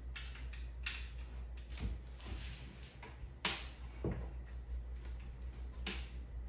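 A handful of scattered knocks and light clatter as flat-pack bookcase panels and loose tools and hardware are moved and set down on the floor, over a low steady hum.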